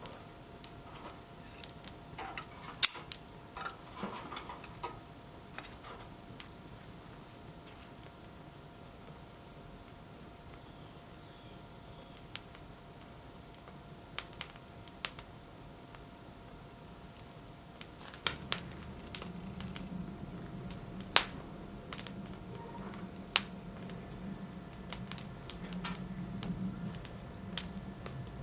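Wood fire crackling in a BioLite FirePit, with scattered sharp pops from the burning wood. A low steady hum joins about two-thirds of the way through.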